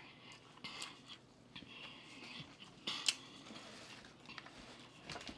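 People chewing and biting into a large burger: a few soft, crackly crunches and mouth clicks, the loudest about three seconds in.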